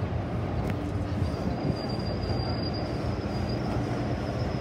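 Inside an MTR M-Train electric multiple unit under way: a steady rumble of the wheels and running gear, with a thin high whine that sets in about a second in.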